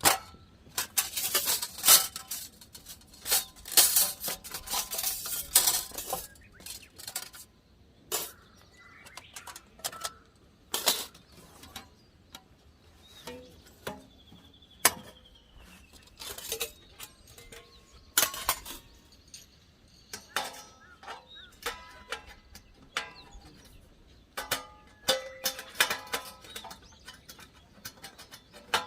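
Metal parts of a folding fire stand being handled and fitted together: irregular clinks and clanks, some ringing briefly, clustered in the first few seconds and again near the end.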